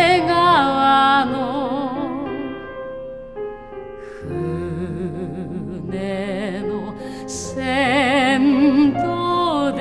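Instrumental closing passage of a slow Japanese song: a melody with heavy vibrato over soft accompaniment, swelling again near the end.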